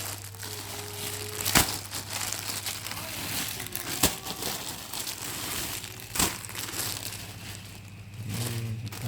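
Packaging crinkling and rustling as a parcel of clothes is unwrapped and handled, with a few sharp snaps about 1.5, 4 and 6 seconds in.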